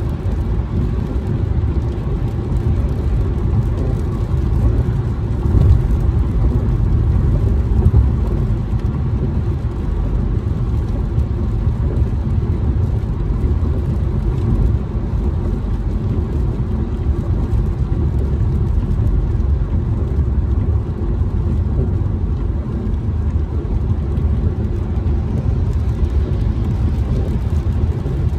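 Steady low rumble of a car driving on a wet freeway, heard from inside the cabin: tyre and road noise with the engine underneath.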